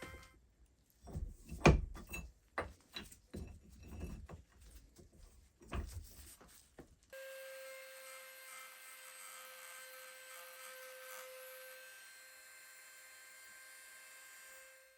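A run of irregular knocks and clatters, with one sharp knock the loudest, then an abrupt switch about seven seconds in to a steady electrical hum with a high tone.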